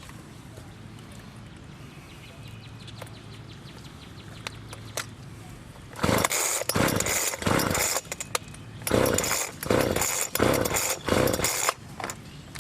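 Homelite chainsaw idling low, then revved in a quick series of short bursts, about eight in six seconds, as it cuts into boxwood branches.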